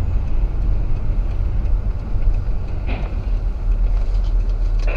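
Steady low rumble of a car driving, engine and road noise heard from inside the cabin through a dashcam microphone, with a brief click about three seconds in.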